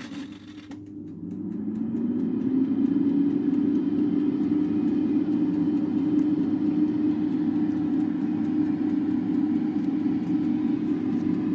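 Goodmans MO Health air fryer switched on: after a few clicks, its fan motor spins up with a hum that rises in pitch over the first couple of seconds, then runs steadily as it starts cooking.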